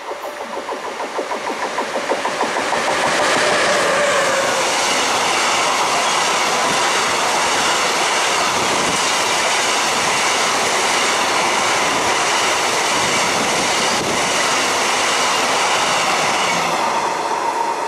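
A freight train of covered hopper wagons passing close by, its wheels running over the rails. It grows louder over the first three seconds as it arrives, then runs on at a steady level as the wagons roll past.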